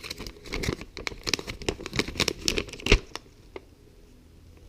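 Crinkling and rustling of packaging as the Zmodo Beam Wi-Fi extender is handled: a dense run of small crackles and clicks for about three seconds, ending in one sharp snap.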